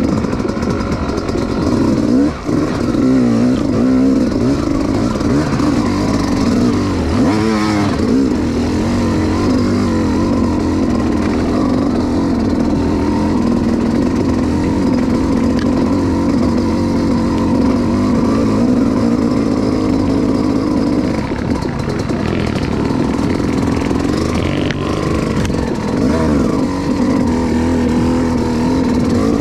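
Yamaha YZ250X two-stroke single-cylinder dirt bike engine with an FMF full exhaust system, running continuously under way as the bike is ridden, its pitch rising and falling as the throttle is rolled on and off.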